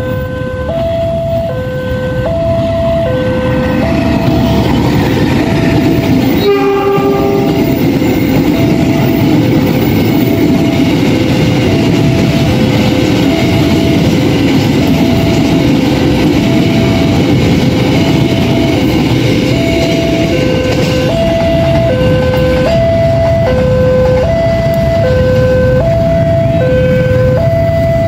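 Railway level-crossing warning alarm sounding a steady high-low two-tone signal while a train rumbles past. The train gives one short horn blast about six and a half seconds in.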